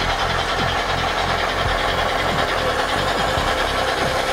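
Simulated diesel locomotive engine sound from the sound decoder and speaker of an HO-scale Athearn SD90MAC-H model locomotive, running steadily as the model moves along the track.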